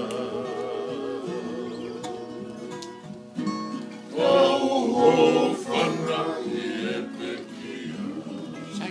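A group of men singing together in harmony to strummed acoustic guitars, including a twelve-string. A held note with vibrato opens, the voices drop back to the guitars around three seconds in, then come in louder about four seconds in.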